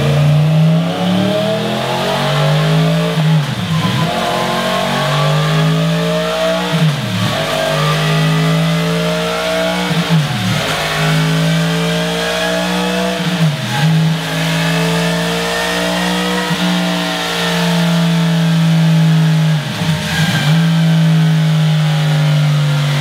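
Yamaha MT-10's crossplane inline-four running on a dyno through a Scorpion RP1-GP slip-on silencer. The exhaust note holds steady, then dips briefly and recovers about every three and a half seconds, six times over.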